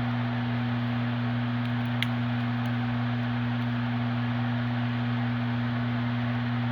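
Steady low hum holding two unchanging tones, one an octave above the other, over a constant hiss, with one faint click about two seconds in.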